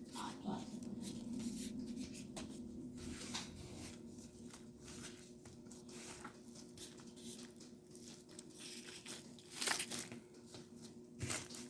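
Clear glue slime being mixed and worked by hand: faint sticky crackles and clicks, with a louder crackle about ten seconds in, over a steady low hum.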